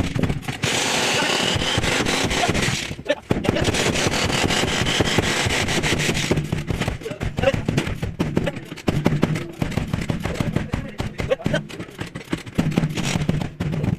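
A power tool hammering rapidly in stop-start bursts during auto body repair work. It runs steadily for about three seconds, breaks off briefly, then goes on in shorter choppy bursts.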